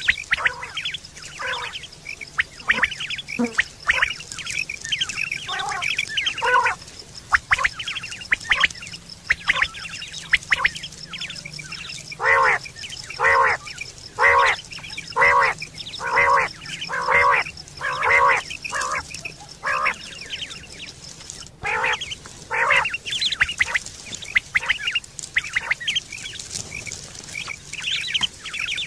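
Quail calling over and over: short pitched calls throughout, with an evenly spaced run of about one call a second in the middle.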